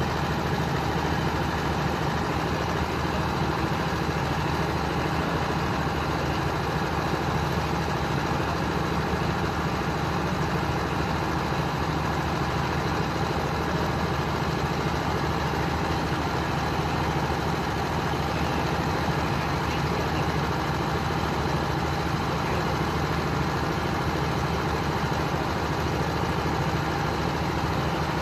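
Steady, unchanging drone of heavy engine machinery from the berthed passenger ship KM Dorolonda, running at idle before departure.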